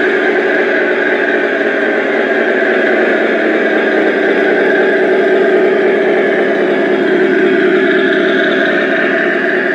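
Remote-control toy tank running: a steady engine-like drone that goes on without a break.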